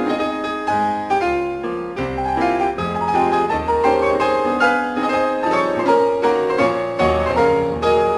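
Piano music: a melody of quick notes over low bass notes.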